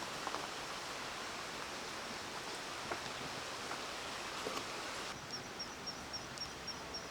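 Forest trail ambience with soft footsteps on leaf litter. From about five seconds in, a bird gives a fast, even series of short high chirps, about five a second.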